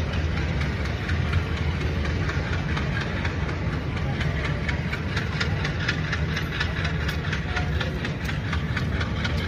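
Passenger train moving through a station, heard from its open doorway: a steady low rumble of the running coaches, with a rapid run of wheel clicks on the track from about halfway through.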